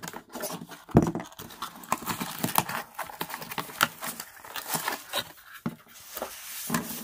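Cardboard box and foam wrapping handled by hand: rustling and crinkling with irregular light clicks and knocks, and a louder thump about a second in.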